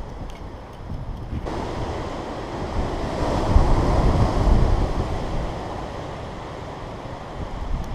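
Strong wind gusting. The rush comes in abruptly about a second and a half in, swells to its loudest around four seconds and dies back down, with wind buffeting the microphone throughout.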